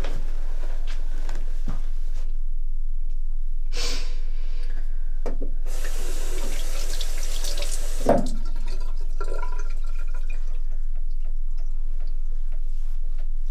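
Bathroom sink tap running, water rushing into the basin for about two seconds, cut off by a single knock; a steady low hum lies under it.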